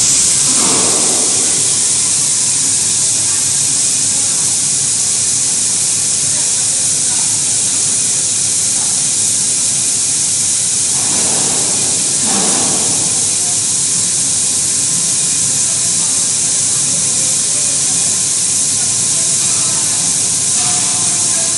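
Aluminium extrusion die blasting machine running, its blast a steady, loud hiss with a brief lower rush about a second in and again around twelve seconds.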